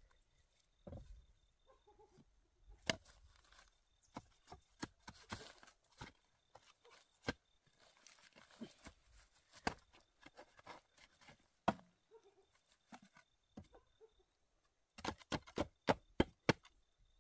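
Scattered sharp knocks and taps at irregular intervals, then a quick run of strikes, about five a second, near the end.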